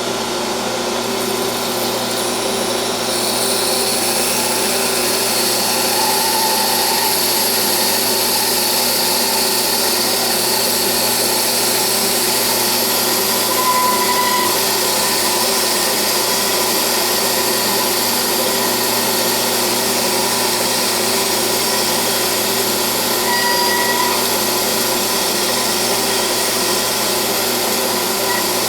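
Metal lathe running steadily, spinning oiled steel stock against sandpaper clamped in a tool-post holder to polish it. A brief squeak sounds twice along the way.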